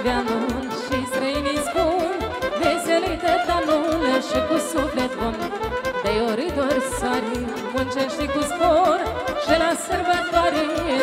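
Live folk party music in the style of a table hora: a violin plays an ornamented melody over a backing track with a steady bass beat, while a woman sings into a microphone.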